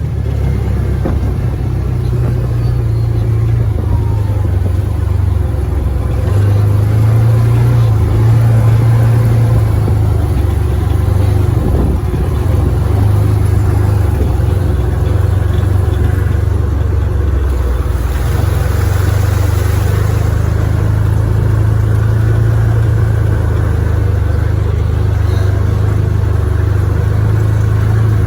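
Side-by-side UTV engine running while being driven, a loud low drone that steps up and down in pitch a few times as the speed changes.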